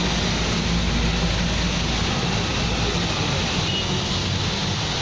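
Heavy rain falling steadily, with a motor vehicle's engine running underneath that fades out about two seconds in.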